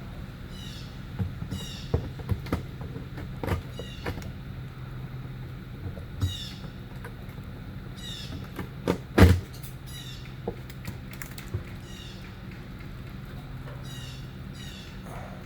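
A steady machine hum with scattered knocks and thumps, the loudest about nine seconds in. Birds chirp repeatedly over it.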